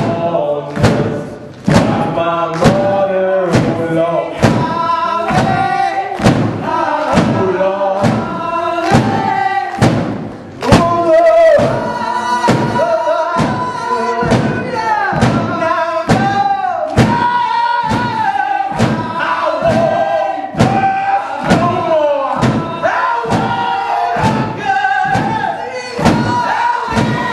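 Live rock band playing: electric guitars, bass guitar and a drum kit driving a steady, heavy beat, with a man singing over it.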